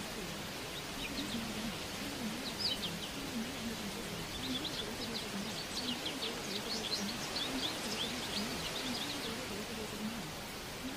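Small birds chirping in quick, high notes, thickest in the middle, over a steady hiss. A low voice murmurs faintly underneath.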